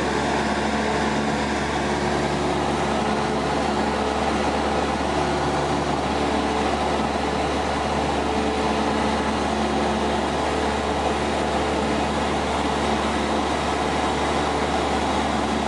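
Cessna light aircraft's piston engine and propeller in steady cruise, heard from inside the cabin as an even, unchanging drone with a constant hum.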